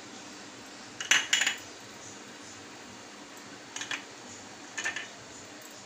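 Steel spoon clinking and scraping against a small ceramic dish as green chillies are emptied out: a quick cluster of clinks about a second in, the loudest, then two shorter ones a little before four and five seconds.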